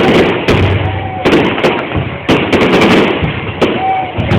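Fireworks going off in a rapid, irregular string of sharp bangs, each with a short echoing tail.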